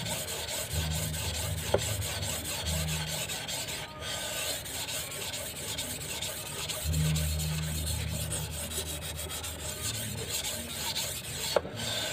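A steel golok (machete) blade of A88 steel being stroked back and forth on a whetstone: a steady gritty rasping of steel on stone. A light tick sounds about two seconds in and another near the end.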